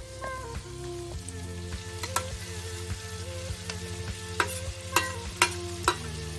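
Prawns and chopped garlic sizzling in hot oil in a frying pan, with a few sharp pops or taps in the second half, over soft background music.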